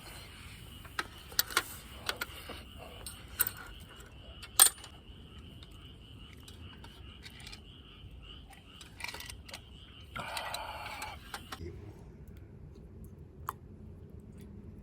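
Several sharp metallic clinks of eating utensils against camp cookware, the loudest about four and a half seconds in, with a brief rustle about ten seconds in. A steady high-pitched tone runs underneath and stops near the end.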